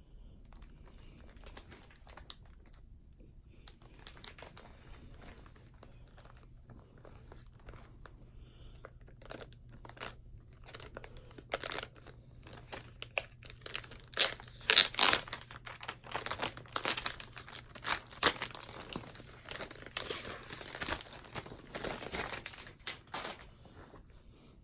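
Packaging wrap being handled and pulled off, crinkling and tearing. It is sparse at first, then becomes denser, louder crackling from about halfway through.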